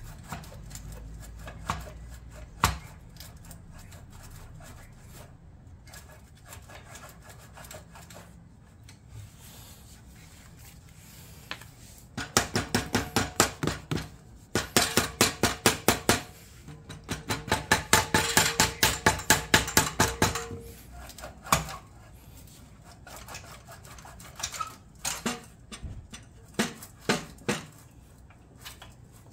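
Heavy steel catalytic converter section of a Yamaha MT-10 exhaust clanking and rattling against the mating pipes as it is wiggled free. A few single knocks come first, then about halfway through three runs of fast metallic knocks, roughly five a second, with a ringing metal tone, then a few more scattered knocks.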